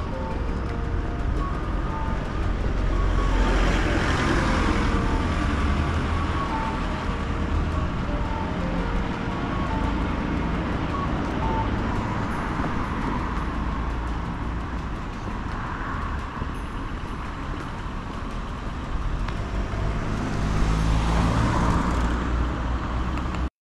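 Road traffic on a city street: a steady low rumble of engines, with vehicles passing close about four seconds in and again near the end.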